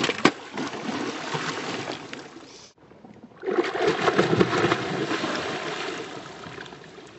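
A hooked tarpon leaping and crashing back into the water, with heavy splashing and a couple of sharp slaps near the start. After a brief break, a second hooked fish jumps and thrashes at the surface, splashing loudly at first and then fading.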